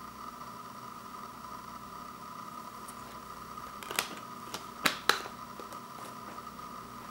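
Blu-ray disc pressed onto the centre hub of its plastic case: three sharp plastic clicks about four to five seconds in, the last two close together, over a steady background hum.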